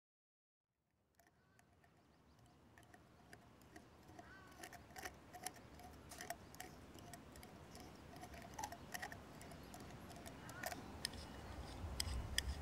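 A knife carving into tree bark: irregular small scrapes and clicks, fading in from silence about a second in and slowly growing louder, with a few faint short chirps.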